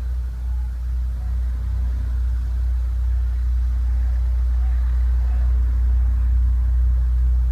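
Helicopter running, a steady deep rumble that slowly grows a little louder.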